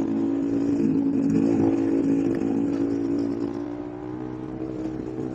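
Bajaj Pulsar RS200's single-cylinder engine running steadily at low revs, easing off slightly in the second half.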